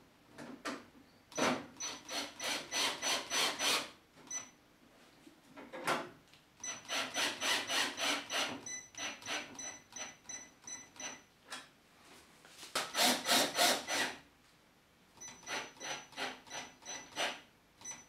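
Cordless drill driving self-tapping screws into the saw's steel braces, in four bursts, each a fast regular pulsing.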